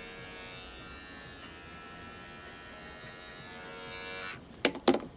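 Small electric pet hair clipper buzzing steadily for about four seconds, then switched off; two sharp knocks follow near the end.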